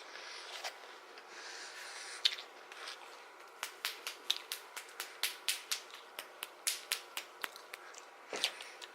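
Close-up chewing of a milk-soaked Oreo cookie: wet mouth clicks, about four a second, starting about three and a half seconds in and stopping near the end.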